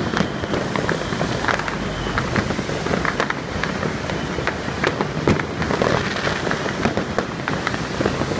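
Many fireworks and firecrackers going off all around at once: a dense, irregular crackle of sharp bangs over a steady noisy background.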